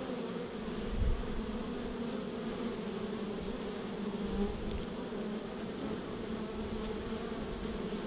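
Honey bees buzzing in numbers at a hive entrance: a steady hum of many wings. A brief low thump about a second in.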